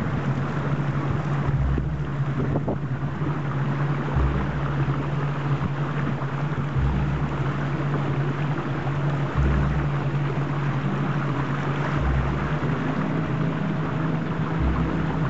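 A motorboat's engine runs steadily, with wind and water rushing past. Beneath it is background music with a deep low boom about every two and a half seconds.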